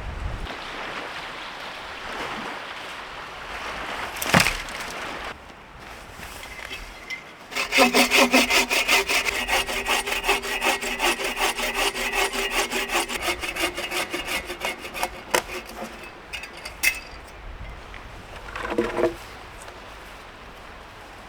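Hand saw cutting through a piece of firewood, with rapid back-and-forth strokes, about four a second, for roughly eight seconds. A sharp knock comes about four seconds in, and a brief rasping burst comes near the end.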